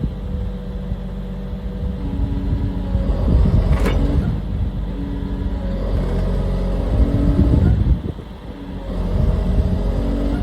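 CAT 336D2L excavator's diesel engine running, its pitch and level shifting up and down with the load. There is a sharp knock about four seconds in, and a short drop in level about eight seconds in.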